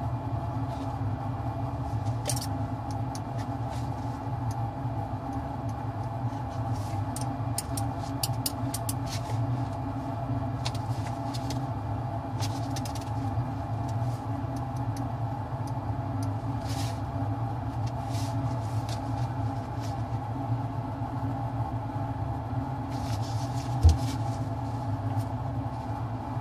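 Steady hum of a laboratory fume hood's ventilation, with faint scattered clicks of glass slides and a metal probe, and one short low thump about 24 seconds in.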